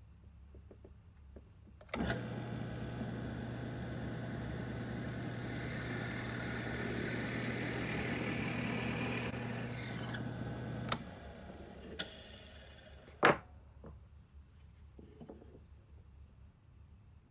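Benchtop drill press switched on, its motor running with a steady hum while a twist bit bores into a wooden block, the cutting noise growing louder before the press shuts off with a click about eleven seconds in and winds down. Two sharp knocks follow.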